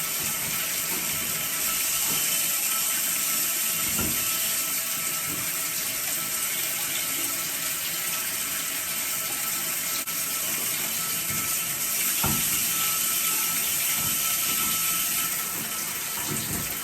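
Water running steadily out of a shower valve fitted with a new Moen cartridge, opened to test that hot and cold are the right way round, with a steady hiss. A few soft knocks come through, about 4 and 12 seconds in.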